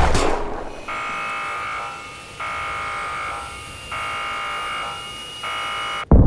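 Action-scene sound effects: a loud bang at the start that dies away over about a second, then a harsh electric buzz sounding in four pulses of about a second each, with a faint steady high ringing beneath. It cuts off abruptly near the end.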